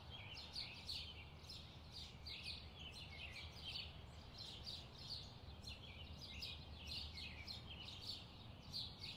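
Faint chirping of small birds: a steady stream of short, quick chirps over a low background hum.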